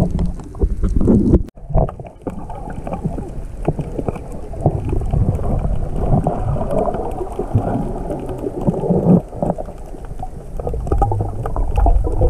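Muffled underwater water noise picked up by a submerged camera: a churning rumble of moving water with scattered small clicks and knocks. It drops out sharply for a moment about a second and a half in.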